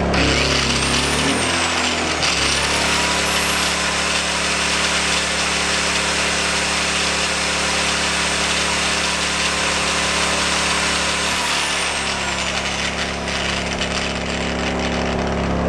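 Angle grinder running off a portable inverter generator. The grinder is switched on briefly and stops about two seconds in. It is then run up to speed with a rising whine, held for about nine seconds, and switched off, winding down. The generator's engine runs underneath, and its note shifts as the grinder's load comes on and goes off.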